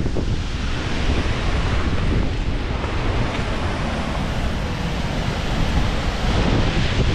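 Steady rush of a waterfall, mixed with wind buffeting the microphone.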